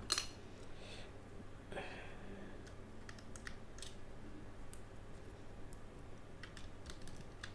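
Scattered light clicks and taps of plastic LEGO parts being handled, as a minifigure is fitted into a LEGO dragster's cockpit.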